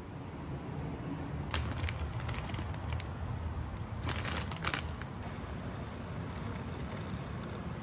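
Crinkling crackles of a plastic instant-ramen packet being handled, in a few short clusters over a steady low background noise. Near the end, water is poured from a kettle into a saucepan with a steady splashing.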